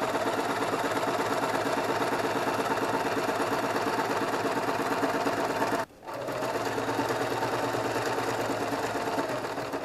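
Singer electric sewing machine running steadily, stitching a seam through ripstop nylon. It stops briefly about six seconds in, then runs again, easing off near the end.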